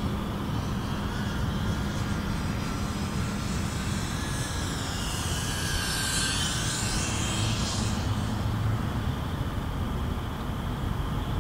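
FPV quadcopter's electric motors and propellers whining in flight, with the pitch sweeping sharply up and down in the middle as the throttle changes.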